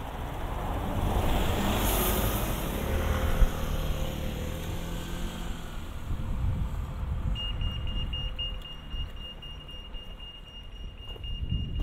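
A car passes, its engine and tyre noise swelling and fading over the first few seconds. From about seven seconds in, a high-pitched electronic tone starts, pulsing briefly and then held steady.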